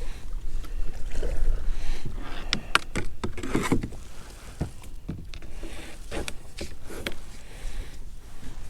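Sounds of a sit-on-top kayak on open water: wind rumbling on the microphone for the first couple of seconds, then a few sharp knocks against the hull and a short splash of water.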